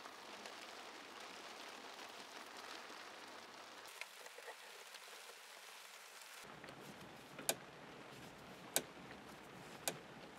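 Hand-threading a 4 mm silver steel rod with a die in a tailstock die holder: faint hiss with three sharp metal clicks about a second apart in the second half.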